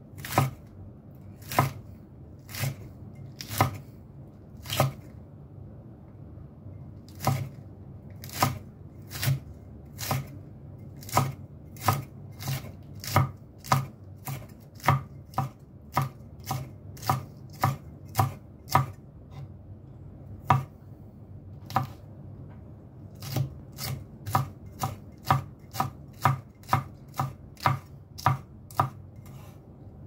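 Kitchen knife chopping green chilies into small pieces: separate sharp knocks, about one or two a second, with a pause of a couple of seconds about five seconds in.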